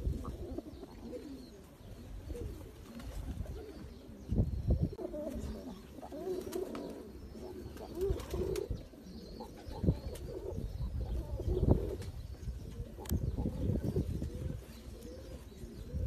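Domestic fancy pigeons cooing, a series of low wavering coos, over a steady low rumble.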